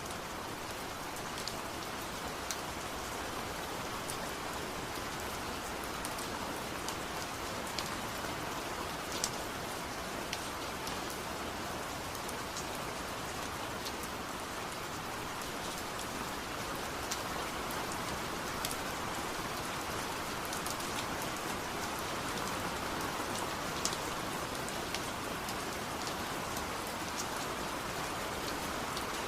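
Steady rain falling and splashing on hard surfaces, a continuous hiss with scattered individual drops ticking.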